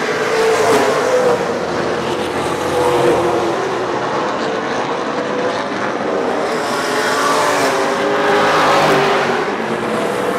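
A field of late model stock cars racing, several engines sounding together and rising and falling in pitch as the cars pass.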